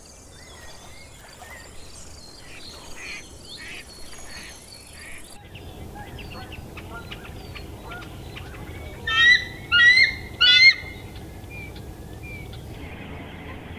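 Wild birds calling: a flock with many overlapping calls, then after a cut three loud, sharp calls in quick succession, each a short run of falling notes.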